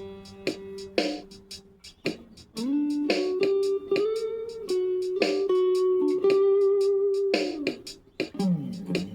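Instrumental music: sustained pitched guitar-like notes with a sharp percussive hit about once a second, a pause near two seconds in, then longer held notes.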